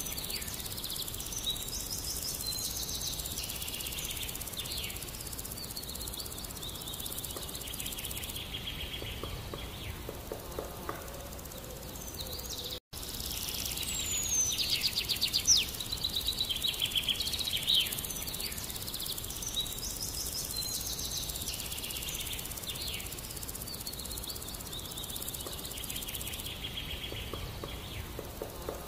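Outdoor ambience of small birds chirping and trilling over a steady background hiss. The sound cuts out for an instant about halfway through.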